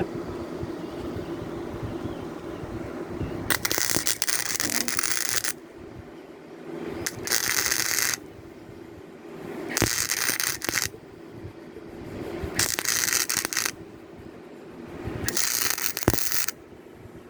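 Gasless flux-core wire-feed welder arc crackling in five short bursts of one to two seconds each as weld is built up. A steady low hum runs through the first few seconds and in the gaps between bursts.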